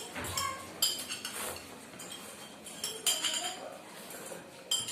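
Cutlery clinking and scraping against plates as food is eaten quickly, with about five sharp metallic clinks that ring briefly.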